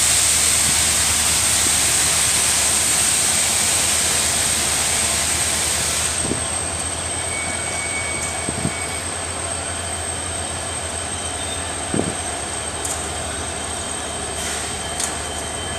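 Freight train's electric locomotive beside the platform: a steady loud hiss with a thin high whine, easing somewhat after about six seconds. A few faint knocks about 6, 9 and 12 seconds in.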